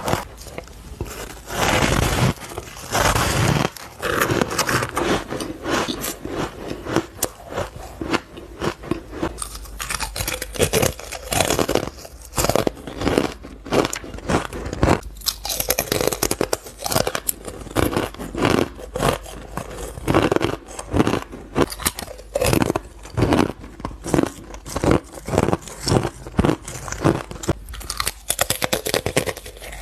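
Close-miked crunching of ice being bitten and chewed, a dense run of sharp crisp crunches throughout, with a longer gritty crunch about two to four seconds in.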